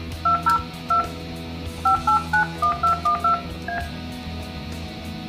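Yealink T29G desk phone sounding DTMF touch tones as a number is keyed in: about eleven short two-tone beeps in an uneven run, over background music.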